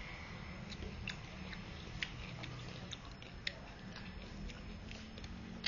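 Someone eating noodle soup: chewing, with scattered sharp clicks, the loudest about two seconds and three and a half seconds in, over a steady low hum.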